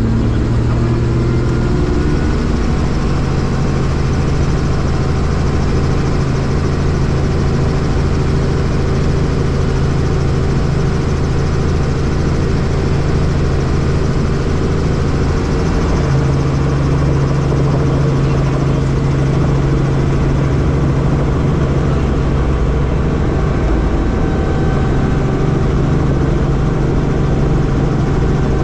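Helicopter engine and rotor running, a loud constant drone with a steady low hum. The pitch rises briefly at the start, then holds steady.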